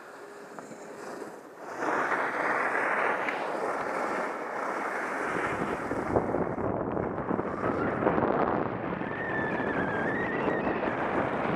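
Wind buffeting the microphone and skis sliding and scraping on packed snow during a downhill run, rising sharply about two seconds in as speed picks up.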